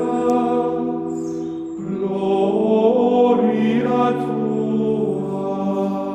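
Background choral music: several voices singing long held notes that shift slowly from chord to chord.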